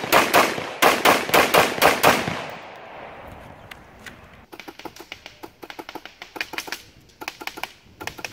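A fast string of gunshots from a carbine, about eight shots at roughly four a second, with the echo dying away after the last one. From about four and a half seconds in come much quieter bursts of rapid, sharp clicking from an airsoft rifle firing.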